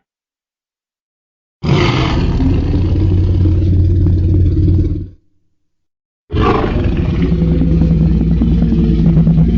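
Two long, low monster roar sound effects in the style of Godzilla. The first starts about a second and a half in and lasts about three and a half seconds. The second starts about six seconds in and is still going at the end.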